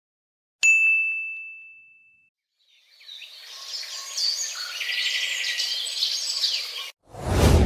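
Sound-effect sequence: a single bright bell-like ding about half a second in, ringing out and fading over about a second and a half. From about three seconds in come birds chirping over a noisy outdoor background. Near the end it cuts off abruptly into a sudden loud whoosh.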